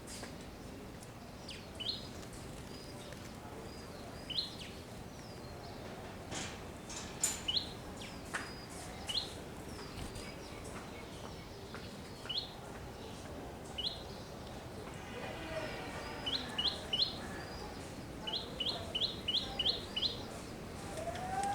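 Sparrows chirping: short, high, rising chirps scattered throughout, with quick runs of several chirps near the end.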